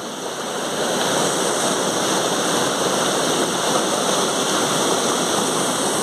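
Creek water rushing over rocks in a small waterfall, a steady rushing noise that grows louder over the first second and then holds.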